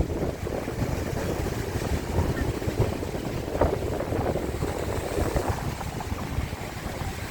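Sea waves breaking and washing onto the shore, with wind rumbling on the microphone.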